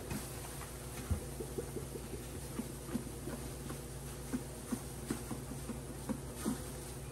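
Soft, dull taps at an irregular pace of roughly two a second as a powder-cleanser canister is shaken and tapped over a plastic tub, dumping powder onto the paste.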